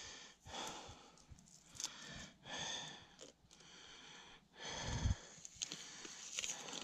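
A man breathing hard in a series of breaths, catching his breath after a strenuous hike, with the crinkle of a plastic drink-mix packet being handled and a low bump about five seconds in.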